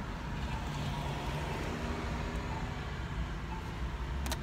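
Steady low rumble of a car heard from inside its cabin, with no speech. A single short click near the end.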